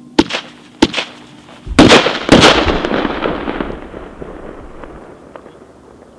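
Firework bangs: two sharp cracks a little over half a second apart, then two much louder blasts about half a second apart, whose echo rolls on and fades over about three seconds.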